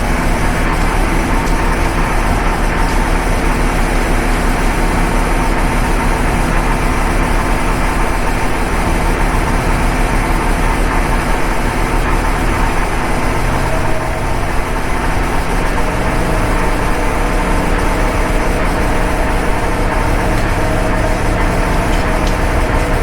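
Steady, loud mechanical drone like an engine idling, with several held pitches that shift slightly about halfway through.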